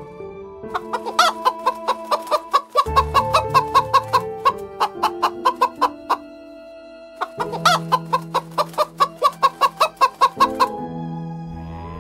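Chickens clucking in two rapid runs of sharp, quick clucks, several a second, separated by a pause of about two seconds, over soft background music.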